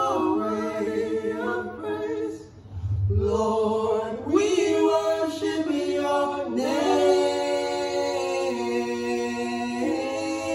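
Three voices, two men and a woman, singing a worship song a cappella in close harmony, holding long chords, with a brief break about two and a half seconds in.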